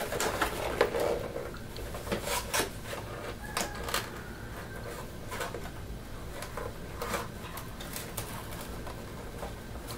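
Scattered light clicks and scrapes of fingers picking at a cardboard box, trying to work it open.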